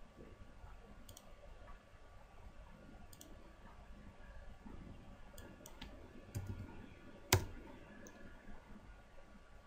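Computer mouse clicking several times at scattered moments, with one sharper, louder click about seven seconds in, over a faint steady hum.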